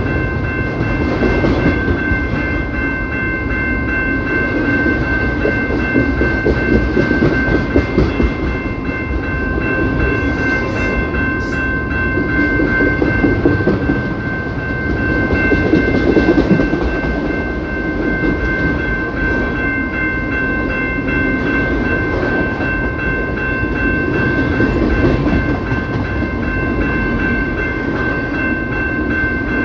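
CPKC freight train rolling past, its wheels rumbling and clattering over the rails, with a steady high-pitched tone held unbroken throughout.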